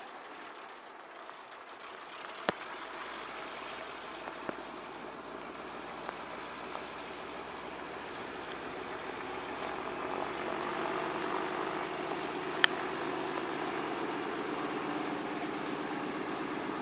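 de Havilland Canada DHC-2 Beaver floatplane's Pratt & Whitney R-985 radial engine running at low power as the plane taxis on its floats after landing, growing louder a little over halfway through. Two sharp clicks, about two seconds in and again near the end, the second the loudest sound.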